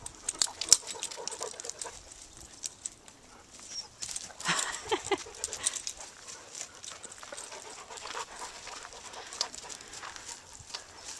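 Dogs playing: panting and scuffling on the dirt and grass, with a brief dog whine about four and a half seconds in.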